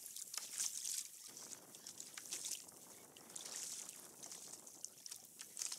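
Sea water lapping and splashing against a kayak hull, an irregular run of small splashes and drips.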